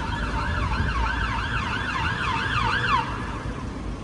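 Electronic siren of a Scania P280 fire engine, a fast up-and-down wail of about three sweeps a second over a low engine and traffic rumble. The siren cuts off about three seconds in.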